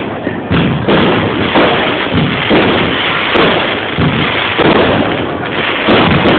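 Fireworks going off in quick succession: one bang after another, about one or two a second, with no pause between them.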